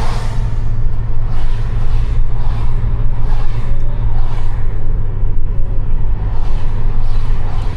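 A Toyota hybrid car on the move, a steady low rumble of road and tyre noise with a rushing swell every second or so.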